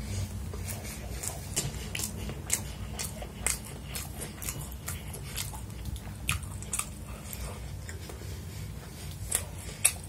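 Close-miked chewing and mouth sounds of someone eating fried rice by hand: irregular short wet clicks and smacks, over a low steady hum.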